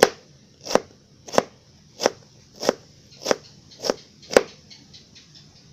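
Kitchen knife chopping a carrot into small dice: eight firm, evenly spaced strokes, each about two-thirds of a second apart, then a few faint lighter taps near the end.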